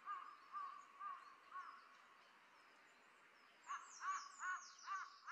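A crow cawing faintly in two runs of short calls, about two a second, with a pause of about two seconds between the runs. During the second run, small birds give high, falling chirps.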